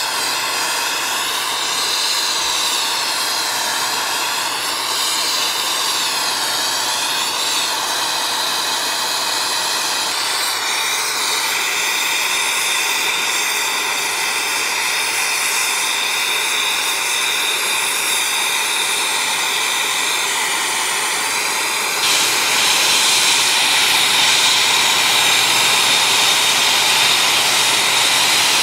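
Brazing torch flame hissing steadily with a faint wavering whistle as it heats aluminium plate and alloy braze rod. It gets louder about two-thirds of the way through.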